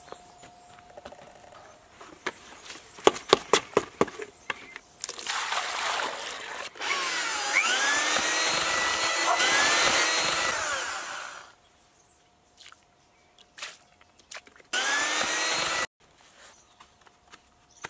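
Electric drill with a paddle mixer spinning up and churning a tub of wet sawdust mortar for about five seconds, then a second short burst near the end. Before it, a few knocks and water splashing from a bucket into the mix.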